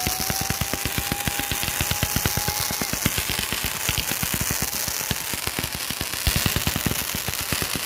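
Flawless consumer fireworks cake firing: a fast, continuous string of sharp cracks and bangs, many each second. A steady whistle sounds over them for the first three seconds or so.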